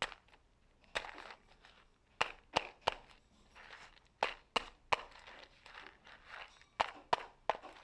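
A knife blade stabbing small slits into a cardboard tube wrapped in masking tape, a dozen or so sharp, irregular clicks; the slits are cut so the firecracker grenade bursts more readily.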